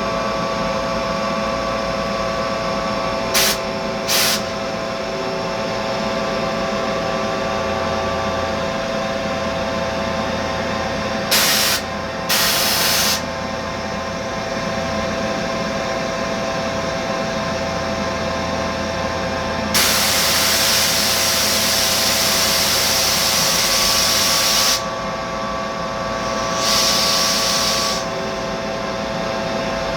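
Mazak Integrex multitasking CNC machine running while machining an aluminium part, with a steady whine of several held tones. Short hissing sprays cut in repeatedly, and a longer one lasts about five seconds from about twenty seconds in.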